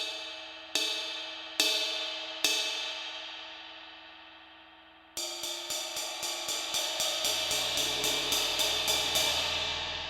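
Diril Primitive 18-inch crash, a dry, dark Turkish cymbal, struck three times about a second apart, each hit left to ring and fade. About halfway through comes a fast run of strikes, about five a second for some four seconds, and then the cymbal rings out.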